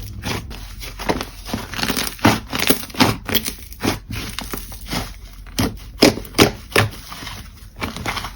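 Slime being squished and pressed, making irregular sharp sticky pops and crackles, a few a second.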